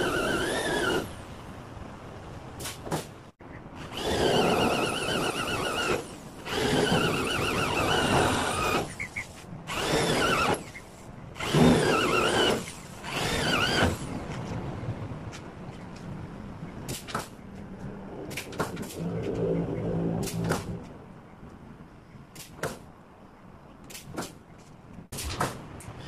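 Corded electric hand drill run in about six short bursts, its whine wavering in pitch, drilling into the steel door frame of a truck's container box. After that come scattered sharp clicks and knocks.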